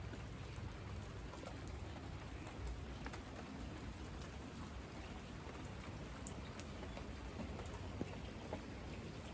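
Steady rain falling on a garden, with separate drops heard tapping now and then.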